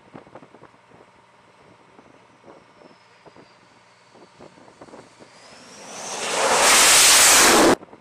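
Approaching aircraft's engines: a faint high whine that dips and then rises in pitch, swelling from about five seconds in to a loud rushing roar that cuts off abruptly near the end. Faint scattered clicks and knocks in the quieter stretch before it.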